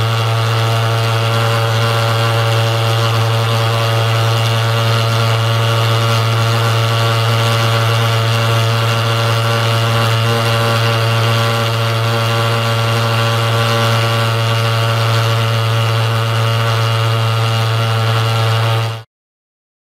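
IGEBA TF35 pulse-jet thermal fogger running: a loud, steady, low-pitched drone with many overtones, which cuts off suddenly near the end.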